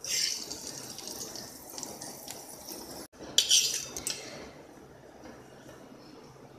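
Steel spoon scraping and clinking against a steel bowl as it scoops oily tempering of mustard and sesame seeds. There is a scrape at the start and another about three and a half seconds in, with light taps between.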